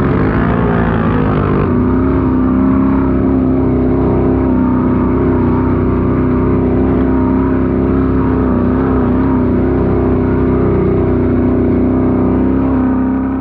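Can-Am Renegade ATV engine running under steady throttle, its pitch wavering briefly at first and then holding nearly constant.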